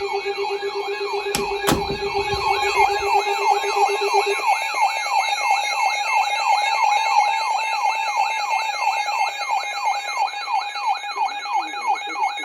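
Electronic alert siren tone heard over a radio broadcast: a wail that sweeps down over and over, about three times a second, above a steady tone. A low pulsing beep runs through the first four seconds, and there are two sharp clicks about a second and a half in.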